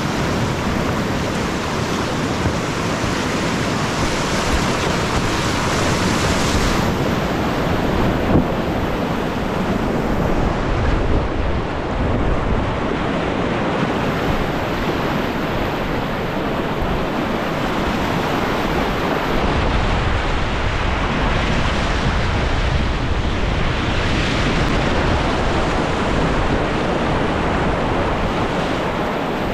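Whitewater rapids rushing and churning around a kayak running through them, a steady loud rush of water. Heavier low rumbling joins about two-thirds of the way through.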